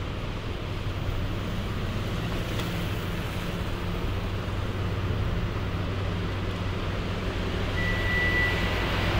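City street traffic noise: a steady low engine hum under the rush of passing cars, growing a little louder near the end, with one short high beep about eight seconds in.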